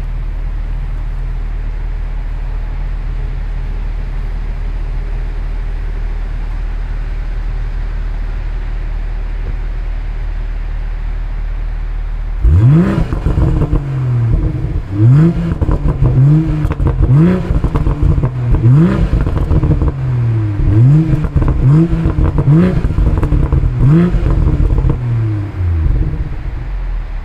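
2020 BMW M340i's turbocharged 3.0-litre inline-six idling steadily, then about twelve seconds in revved in a series of quick blips, about one a second, each rising and falling in pitch, with exhaust crackles and burbles between them.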